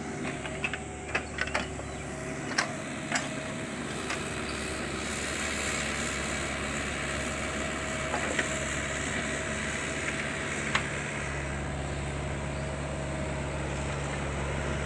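Kubota U50 mini excavator's diesel engine running steadily, with a scattering of sharp clicks and clanks, most of them in the first few seconds.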